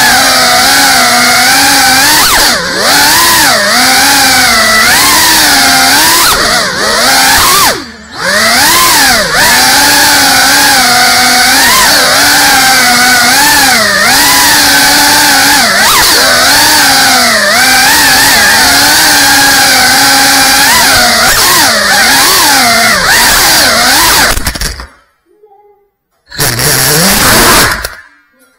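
FPV quadcopter's brushless motors and propellers whining, the pitch rising and falling constantly with the throttle. The sound dips briefly about 8 seconds in and cuts off at about 25 seconds. The motors then spin up again in one short burst near the end before stopping.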